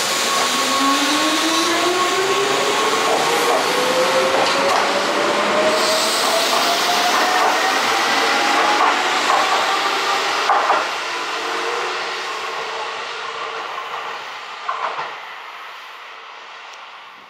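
Keihan electric train pulling away, its traction motors whining in a tone that rises steadily in pitch as it gathers speed, with wheels clicking over rail joints. The sound then fades as the train leaves.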